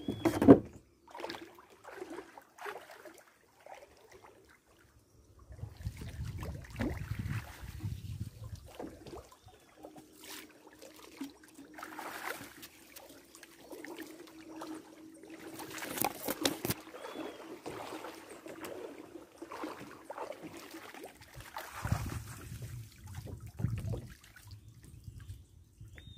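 Shallow river water sloshing and trickling in irregular splashes as an improvised shrimp sieve, a stove grate covered with fine mesh, is swept through the water along the bank and lifted out to drain. A loud thump comes just after the start.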